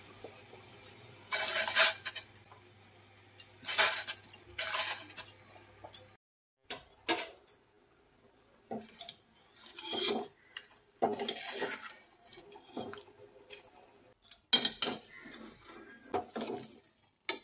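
Metal utensils, a wire spider strainer among them, scraping and clinking against a steel pot in a series of short bursts as cut potato sticks are stirred and scooped through water.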